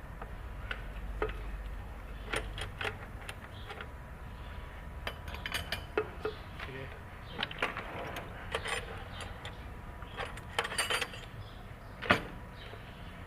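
Irregular metallic clinks and clicks of tools and engine parts being handled during repair work, over a low steady rumble, with one sharper knock near the end.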